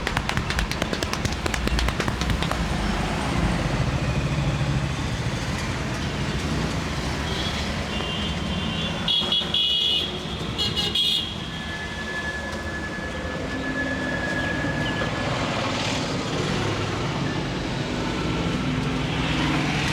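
Street traffic noise with a vehicle horn tooting around the middle, high tones for about three seconds, then a single steady tone for a few seconds more.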